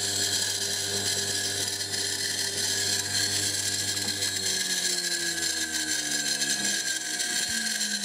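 240 V washing machine motor spinning fast on a variable-frequency drive at 200 Hz, four times its rated speed, with a loud steady hiss and whine from its noisy shielded ball bearings, just sprayed with CRC 5-56. About halfway through, a lower tone falls steadily in pitch.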